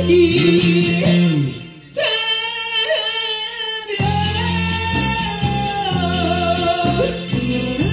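Live band with acoustic guitar and keyboard backing a male singer. About two seconds in, the band drops out and the singer holds a long high note on his own. The band comes back in about four seconds in, under a further sustained sung line.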